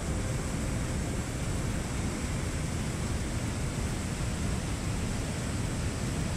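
A large waterfall, a heavy volume of white water pouring over rock, making a steady, dense rushing roar with a deep rumble underneath.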